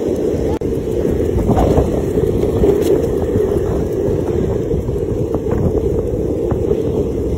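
Steady low rushing noise of wind on the microphone during fast movement along a road.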